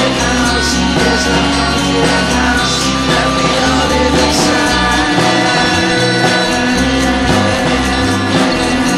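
Music: an electronic-rock song with a pulsing bass line, held chords and a singing voice.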